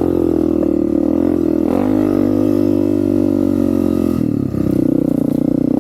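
Honda CRF250F dirt bike's single-cylinder four-stroke engine running at a steady throttle, with a brief dip and change in pitch about a second and a half in and again about four seconds in.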